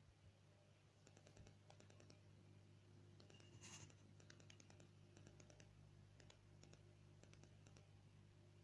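Near silence: a faint steady low hum with scattered faint clicking.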